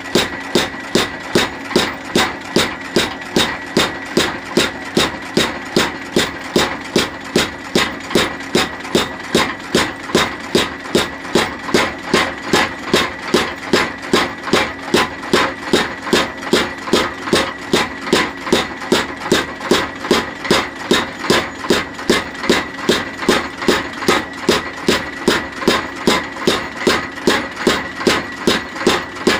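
Homemade flywheel-driven power hammer striking a red-hot leaf spring in steady, rapid blows, about two and a half a second, cutting through the steel. A steady machine hum runs under the blows.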